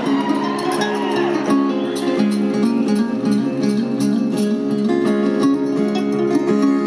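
Live band playing an instrumental break between verses, led by strummed and plucked acoustic strings over held notes.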